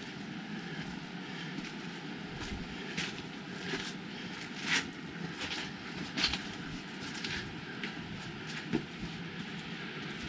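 Steady rush of falling water, with a handful of short taps and scuffs scattered through it.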